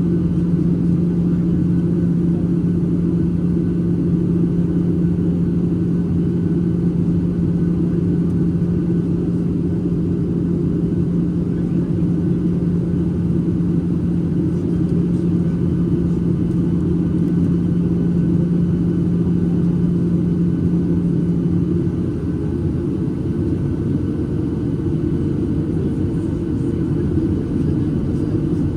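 Steady cabin roar of a Boeing 737-800 on approach, CFM56-7B engines and airflow over the fuselage. A strong steady hum drops out about 22 seconds in, and a fainter, higher tone comes in soon after.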